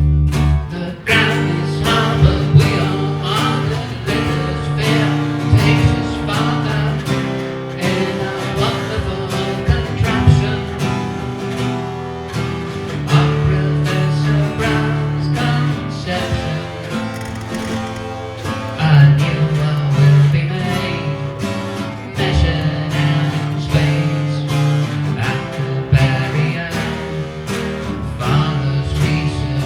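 A band playing a song live, led by a strummed acoustic guitar over steady low notes, with a steady beat.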